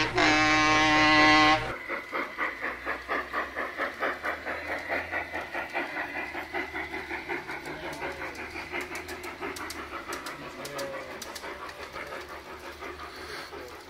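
Model steam locomotive's sound unit on a garden railway: a steam whistle blast that cuts off about a second and a half in, then a steady chuff-chuff of about three beats a second that slowly fades as the train runs away. A few light clicks are heard later on.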